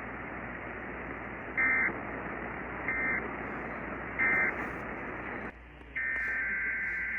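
Emergency Alert System end-of-message: three short bursts of warbling SAME data tones, a little over a second apart, over steady radio hiss. About six seconds in, a longer burst of the same data tones begins: the header of the next EAS alert.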